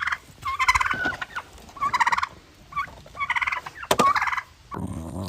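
A bird calling in four short, rattling bursts about a second apart, with a sharp click near the end.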